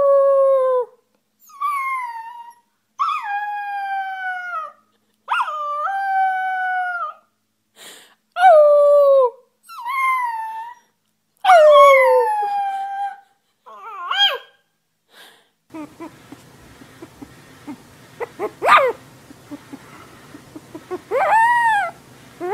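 A puppy howling: about eight drawn-out howls, each sliding down in pitch, with short gaps between them. After a cut, a second tiny puppy gives one short sharp cry, then an arched howl that rises and falls near the end.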